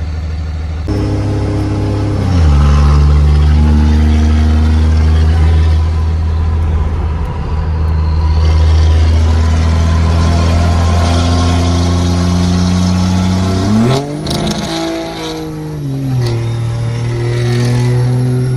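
Turbocharged Cummins 5.9-litre inline-six diesel of a 2003 Dodge Ram, heard from inside the cab as the truck pulls away and accelerates. The engine note steps down at an upshift about two seconds in, then climbs and drops again through further shifts near the end.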